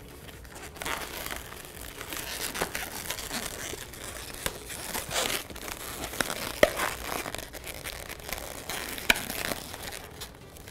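Latex modelling balloons rubbing and crinkling as they are handled and twisted in the hands, with a few sharp clicks.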